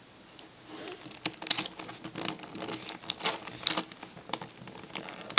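Plastic pieces of a V-Cube 4 puzzle clicking and clattering as they are handled and fitted into the partly assembled cube: a run of irregular light clicks that starts about a second in.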